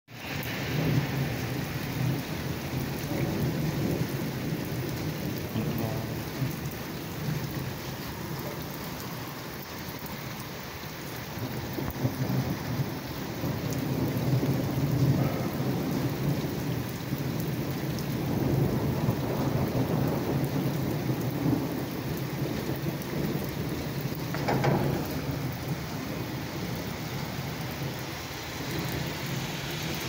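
Heavy rain pouring onto a flooded asphalt road, a dense steady hiss of drops splashing into standing water. Under it, a low rumble of rolling thunder swells and fades.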